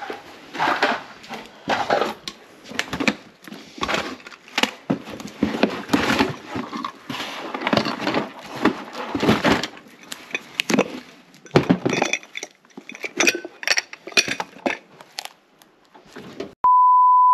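Items being handled in a cardboard box: irregular clinks and clatters of glass and small boxes, with rustling of cardboard and packaging. Near the end a steady electronic beep sounds for under a second.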